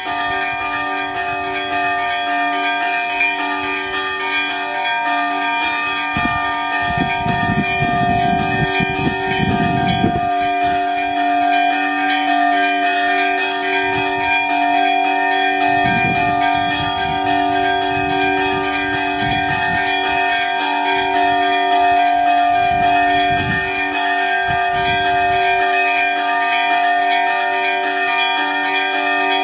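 Church bells ringing a continuous, rapid peal, several bells sounding together. The peal starts abruptly.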